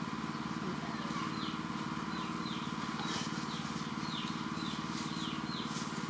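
A steady low motor hum, with short high descending chirps repeating about twice a second from about a second in.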